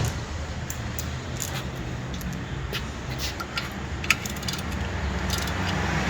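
Scattered light metallic clicks and clinks of tools and parts being handled, with one sharper click about four seconds in, over a steady low hum.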